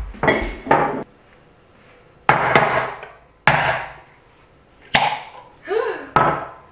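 Sharp whacks on a jar, struck hard about seven times with irregular gaps, some in quick pairs, to break the lid's seal so it can be twisted off.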